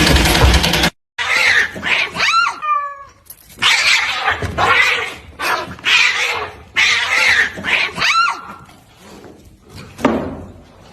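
Cat yowling (caterwauling) in a series of drawn-out, raspy cries, some rising and falling in pitch. It follows a loud rushing noise that cuts off abruptly about a second in.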